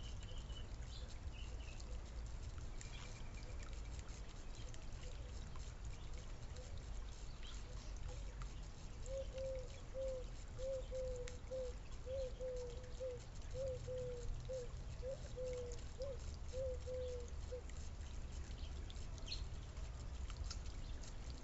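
A bird calling a run of short, low notes, about two a second in twos and threes, for some eight seconds starting about nine seconds in, over a steady low rumble, with a few faint high chirps near the start.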